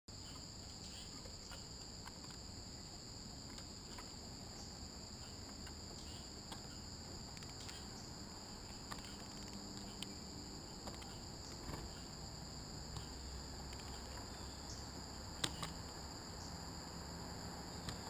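Steady high-pitched chorus of insects, with a few sharp taps and clicks scattered through it; the loudest tap comes about fifteen seconds in.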